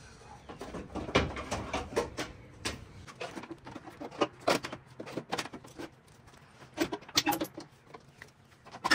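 Irregular metallic knocks, clicks and rattles as an aluminium radiator with two electric fans is lowered into the engine bay and worked down into its mounts.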